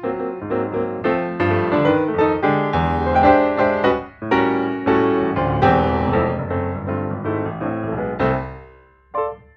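Background piano music: a run of quick notes that fades out near the end, followed by one short note.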